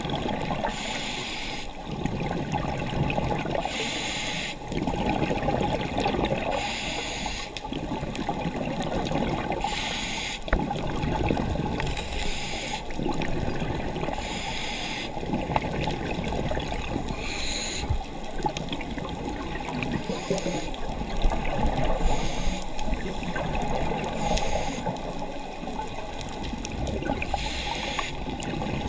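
A scuba diver breathing through a regulator, heard underwater: a short hiss every few seconds alternating with the bubbling rush of exhaled air.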